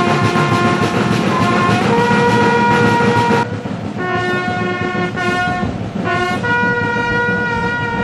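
A brass bugle call at a military funeral: slow, long held notes stepping up from a lower pitch to one a fourth higher, then, after a short break, low to high again, the last high note held for about three seconds.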